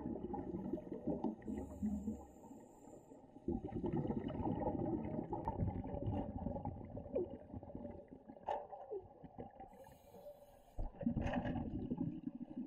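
Underwater bubbling of a scuba diver breathing out through a regulator: long bursts of exhaled bubbles with quieter pauses between breaths.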